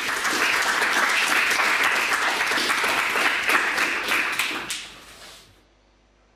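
Audience applauding, fading away about five seconds in and stopping, leaving near-silent room tone.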